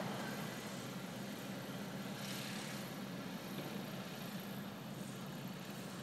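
Engine running steadily at idle with a low drone, and a brief hissing whoosh about two seconds in.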